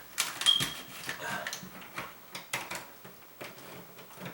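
Several scattered sharp plastic clicks and knocks from a Kidde hard-wired smoke alarm being handled and worked loose during removal.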